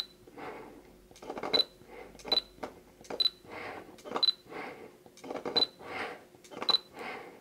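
Fujifilm X-T2 with the XF 23mm f1.4 R lens autofocusing over and over. Short bursts of focus-motor noise come about once a second, most of them ending in a short high focus-confirmation beep.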